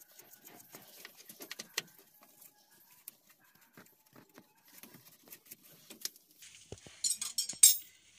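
Small metallic clicks and taps as two 10 mm nuts are started by hand onto the carburetor mounting studs of a Bajaj petrol three-wheeler engine. A louder rattling clatter comes about seven seconds in.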